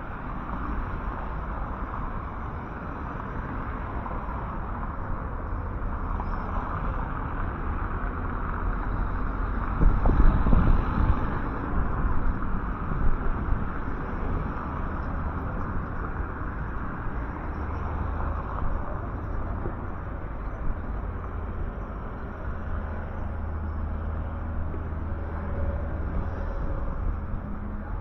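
Town street ambience: a steady wash of traffic noise with a low rumble, swelling briefly about ten seconds in as a vehicle passes.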